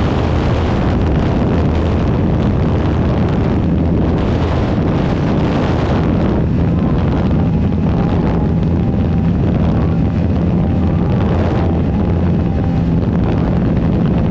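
Bajaj Pulsar NS200's single-cylinder engine held at high revs near top speed, around 145 km/h, its note steady under heavy wind noise on the rider-mounted microphone.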